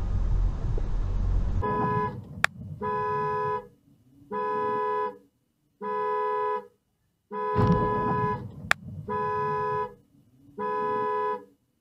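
Steady road and tyre noise of a car driving on a wet road cuts off about a second and a half in. Then a two-tone car horn sounds in long, evenly spaced honks, about one every second and a half. A sharp click comes twice, and a loud thump lands under one of the honks about halfway through.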